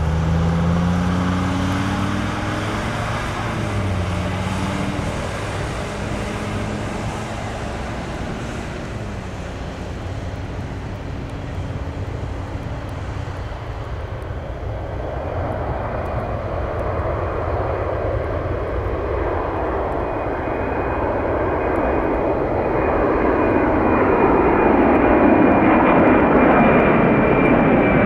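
Airliner engines on an airport runway. The first aircraft's engines rise in pitch and then fade over the first several seconds. A second aircraft's engines grow steadily louder from about halfway through, with a steady high whine over the rumble near the end.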